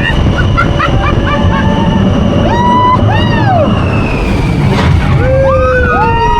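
Loud steady rumble of the Journey to the Center of the Earth ride vehicle running on its track. Several high shrieks rise and fall in pitch over it, about halfway through and again near the end.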